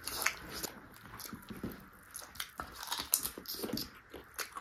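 A person biting and chewing chicken feet: irregular chewing with several sharper bites among it.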